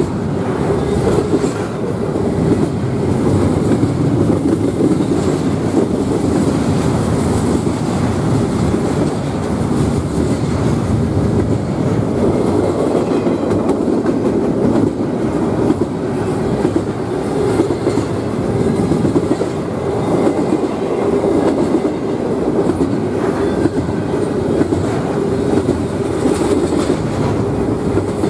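Double-stack intermodal well cars rolling past on steel wheels and rails, a loud, steady rumble.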